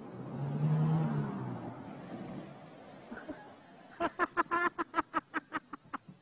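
A car drives through deep floodwater with a rushing splash and a low engine hum. About four seconds in, a person bursts into a fast, high-pitched run of laughter that fades out after a couple of seconds.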